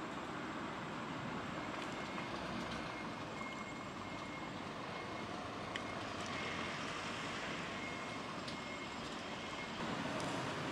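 Steady background hum of distant traffic or machinery, with a few faint clicks as a crow pecks food from a ceramic plate.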